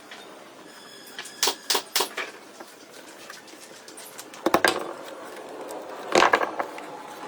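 Sharp knocks in small groups: three quick ones about a second and a half in, then two short clusters about four and a half and six seconds in, over a low steady background.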